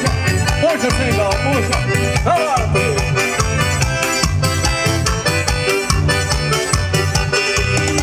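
Forró pé de serra music led by accordion, over a steady low beat.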